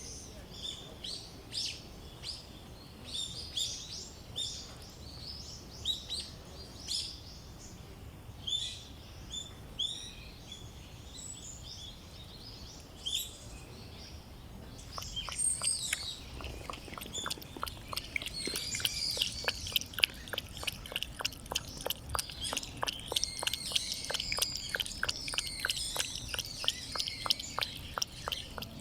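Small birds chirping outdoors: scattered short chirps at first, then from about halfway a dense chorus of calls mixed with quick, regular clicking.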